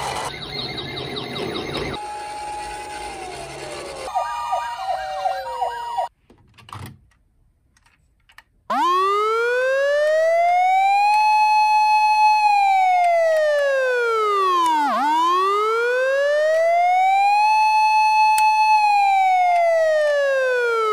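Police car siren wail of the Japanese kind, a slow rising and falling electronic tone: it climbs, holds high for a couple of seconds, dips low and climbs again, about 6 s per cycle. Before it come a few seconds of busy, jumbled sounds with falling glides, then a short near-silent gap.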